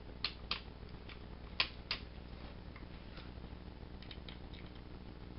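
Light plastic clicks and taps from the Legacy Megazord toy and its sword being handled: four sharp clicks in the first two seconds, then a few fainter ticks.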